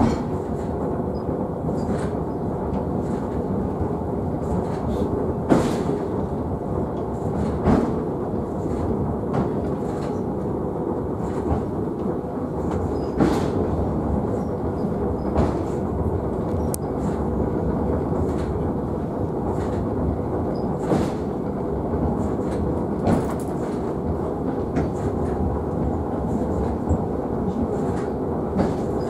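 Sakamoto Cable funicular car running downhill on its rails, heard from inside the front cab: a steady rumble with a sharp knock every few seconds.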